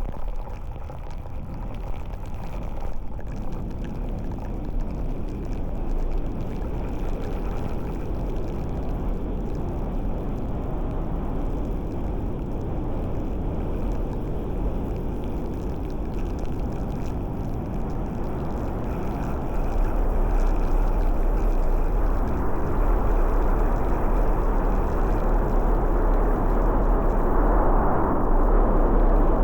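Steady rushing noise of a moving vehicle, with a deep rumble and wind and road noise, getting louder about twenty seconds in.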